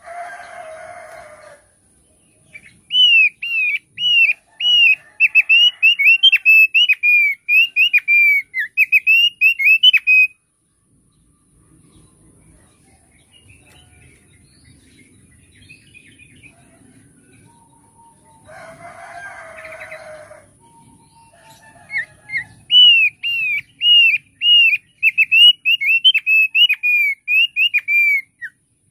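Thick-billed heleia (opior paruh tebal) singing two long bouts of rapid, repeated short slurred whistled notes, about three a second. A brief coarse call sounds twice beneath it, at the very start and about two-thirds of the way through.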